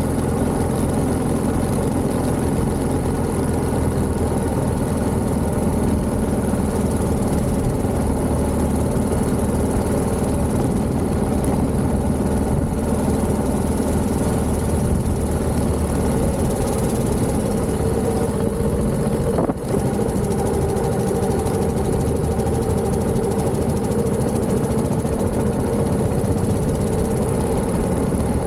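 Engine of a 1929 Méray motorcycle with a JAP 600 engine, running steadily under way, with one brief dip in the sound about two-thirds of the way in.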